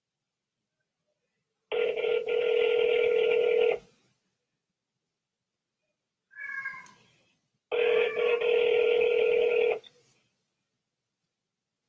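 Telephone ringback tone on an outgoing call: two rings of about two seconds each, the second starting six seconds after the first, as the line rings unanswered at the far end. A short, faint wavering sound comes between the two rings.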